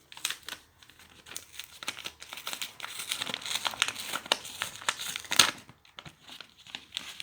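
A taped mail package being opened by hand: packaging crinkling and crackling, with tape or wrapping tearing. The loudest sharp rip comes about five and a half seconds in.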